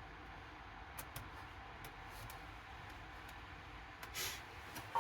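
Quiet workshop room tone with a few faint, short handling clicks, and a brief scraping rustle a little after four seconds in.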